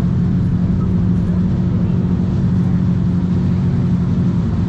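Several supercar engines, Lamborghinis among them, idling steadily with a deep, even hum that holds without revving.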